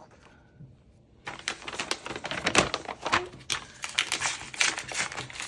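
Packaging being handled on a table: a quick, dense run of crinkles and light clicks that starts about a second in.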